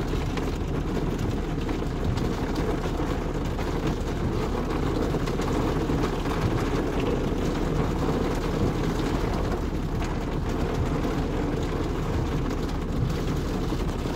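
Steady rain falling on a car's roof and windscreen, heard from inside the cabin: a dense, even, low patter with no breaks.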